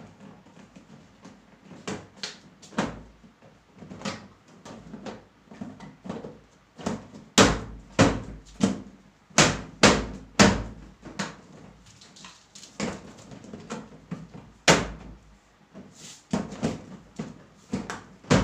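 Hard plastic panels of a five-tier plastic cabinet knocked and snapped into place by hand: an irregular string of sharp knocks and clacks, the loudest clustered in the middle.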